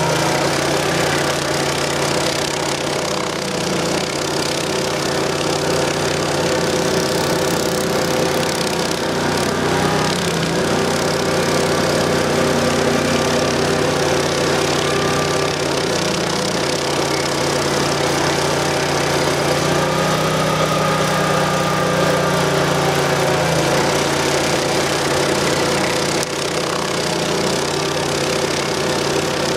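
Stump grinder's 20 HP Honda V-twin gas engine running steadily under load while its Greenwheel cutter wheel grinds into a tree stump.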